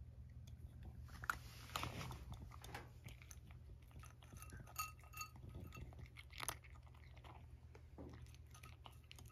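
A cat chewing and crunching dry kibble from a bowl: faint, irregular crunches and small clicks, a few of them louder.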